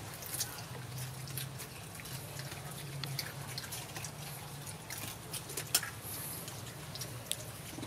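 Long-tailed macaques eating at close range: scattered small, wet clicks and smacks of chewing, with a steady low hum underneath.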